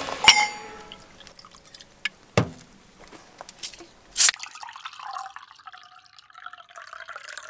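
Something dropped into a stainless steel cup with a ringing metallic clink, then a couple of sharp clicks. From about four and a half seconds in, soft drink is poured from a plastic bottle into the steel cup.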